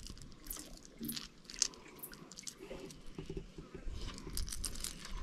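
Fishing line and a small lure handled close to the microphone as they are rigged together: soft scattered clicks, crinkles and rustles, with one sharper click about a second and a half in.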